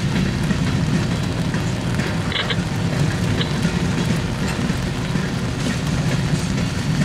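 Covered hopper cars of a freight train rolling past, a steady rumble of steel wheels on the rails. A couple of short high squeaks come a little over two and three seconds in.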